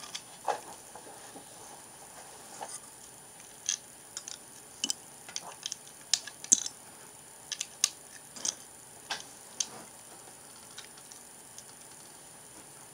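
Plastic Lego bricks clicking as they are handled and pressed onto the build: irregular sharp clicks and taps, which stop about ten seconds in.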